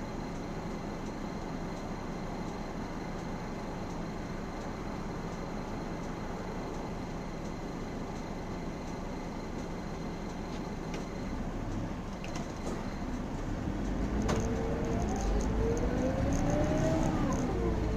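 Mercedes O405N city bus's diesel engine idling steadily, then revving up as the bus pulls away from a standstill, heard inside the bus. The pitch climbs from about two thirds of the way in and dips near the end as the automatic gearbox changes up.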